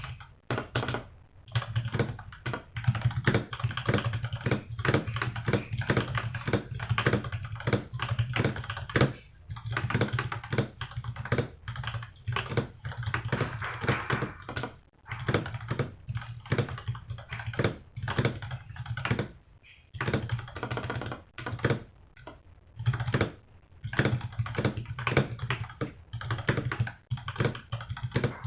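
Typing test on a Feker IK75 mechanical keyboard fitted with factory-lubed Gateron Milky Yellow Pro linear switches, an aluminium plate and GMK Botanical-style keycaps: a fast, continuous run of keystrokes with a few brief pauses.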